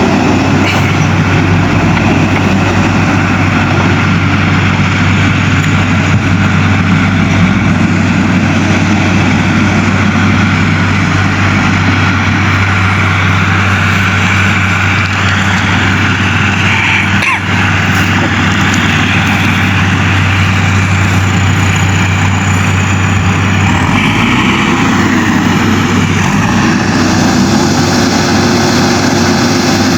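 Diesel engine of a JCB 3DX backhoe loader running steadily while it digs a ditch. About two-thirds of the way through the engine note changes.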